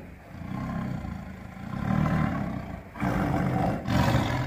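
A deep, rough roaring sound that swells and fades several times, with the loudest surges near the end.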